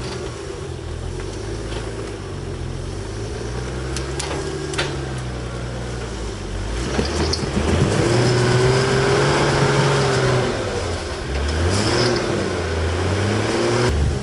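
Toyota 4Runner rock crawler's engine revving up and down under load as it crawls over logs and rocks, rising to its loudest and highest about eight seconds in before easing off. A few sharp knocks sound about four to five seconds in.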